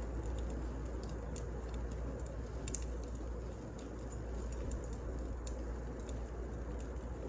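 Wood fire burning: a steady low rush with scattered sharp crackles and pops of burning logs.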